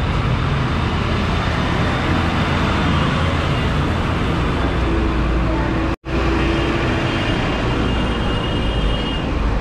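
Busy city street traffic noise, a steady mix of engines and tyres. All sound drops out for a split second about six seconds in.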